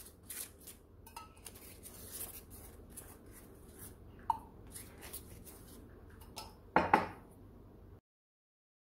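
Silicone pastry brush dabbing and spreading oil over the top filo sheet of a pie, with scattered light taps and kitchenware clinks. A louder clatter comes about seven seconds in, and then the sound cuts to silence.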